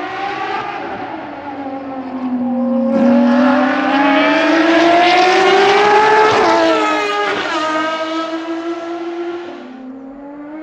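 Ferrari FXX Evoluzione's V12 racing engine at speed on track. The pitch sinks, then climbs under hard acceleration to a sudden drop about six and a half seconds in, an upshift, then holds and fades near the end.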